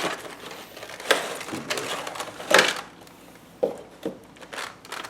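A model kit's box being opened and its packaging handled: a few short rustling, scraping sounds, the loudest about two and a half seconds in.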